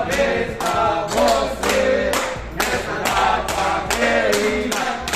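Group of voices singing together over steady rhythmic clapping, about three claps a second: a birthday song.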